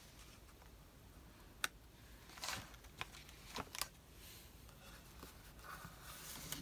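Paper craft pieces being handled on a desk: a few soft clicks and rustles, the sharpest tick about a second and a half in.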